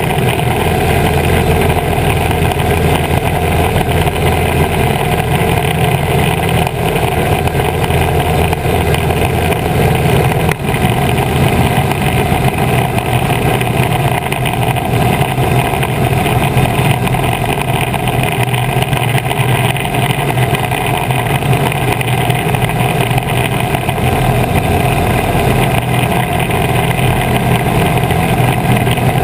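Piper PA-18 Super Cub floatplane in steady cruise: its piston engine and propeller run at a constant, even drone, mixed with wind rushing over a camera mounted outside on the float. A single brief click about ten seconds in.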